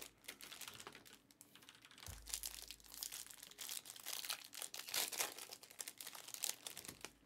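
Foil trading-card packs crinkling as a stack of them is handled and shuffled in the hands, in a run of short, irregular rustles.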